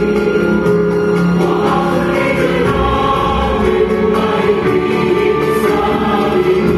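Choir singing with a live orchestra, held, sustained notes at a steady loudness.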